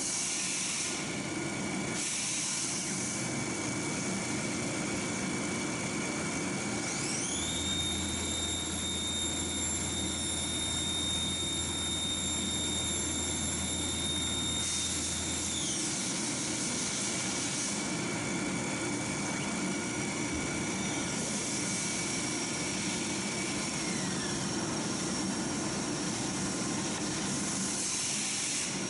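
Sherline CNC lathe spindle whining up to speed about a quarter of the way in and running steadily while a grooving tool cuts a hardened steel dowel pin, then winding down just past the middle. A steady hiss of shop machinery runs underneath, including a larger CNC machine running parts.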